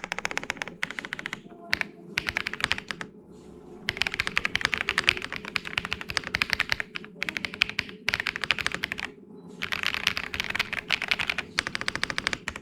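Fast typing on a Weikav WK75 mechanical keyboard with Moon White switches: quick runs of keystrokes with a few short pauses between them, a creamy, thocky sound.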